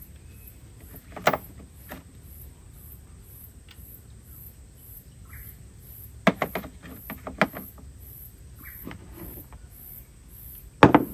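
Hand tools clinking and knocking against a tractor's transmission housing as a side panel is worked off: two knocks in the first two seconds, a run of them a little past halfway, and the loudest knock near the end. Insects chirp steadily throughout in a high, even pulse about twice a second.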